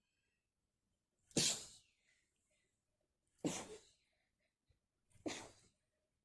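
A woman sneezing three times in a row into her hoodie sleeve, the sneezes about two seconds apart, each a sharp burst that fades quickly, as part of a sneezing fit.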